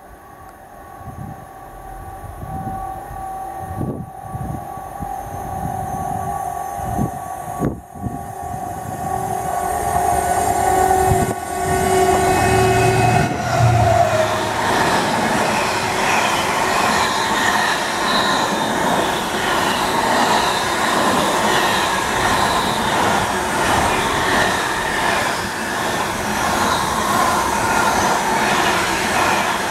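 Freightliner Class 70 diesel locomotive approaching on the main line, growing louder, its tone dropping in pitch as it passes about 13 seconds in. Then comes the loud, steady noise of a long train of container wagons running past on the rails.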